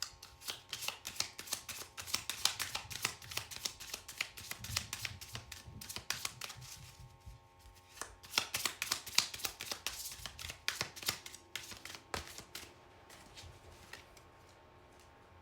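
Tarot cards shuffled by hand: quick runs of flicking, slapping cards in two bouts with a short pause near the middle, tapering to a few light ticks near the end.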